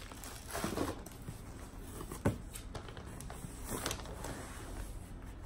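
Plastic packaging rustling as a wrapped package is handled over an open cardboard box: a few short swishes and one sharp knock a little over two seconds in.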